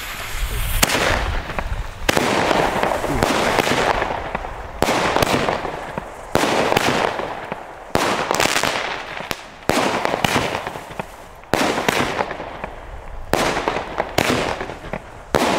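Lesli Palms consumer firework battery firing about nine shots, one every one and a half to two seconds. Each shot is a sudden bang followed by a rush of noise that fades over a second or so.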